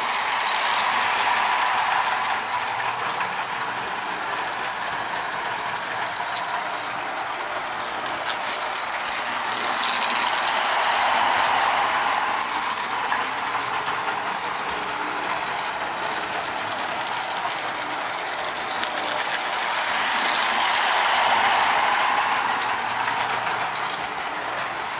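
Marx 'Marxawatha' tinplate toy train running on three-rail O-27 track, its motor and gears whirring and its wheels rattling over the rails. The sound swells louder and fades three times, about ten seconds apart.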